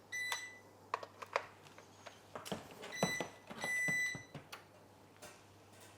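Electronic beeps from the control panel of a Breville Smart Oven Air Fryer Pro as it is switched on and its buttons and dial are worked: a short beep at the start, another about three seconds in and a longer one right after, with small clicks of the controls in between.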